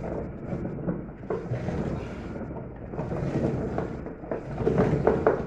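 Scraping, creaking and clicking of metal as a puller is worked to draw the agitator up off its shaft in a Consul Facilite washing machine. Several sharper knocks come near the end.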